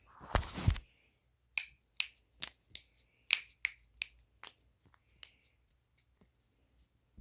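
Joints being cracked by hand. A longer, dense crack comes about half a second in. It is followed by about a dozen sharp pops, a few tenths of a second apart, that grow weaker after the middle.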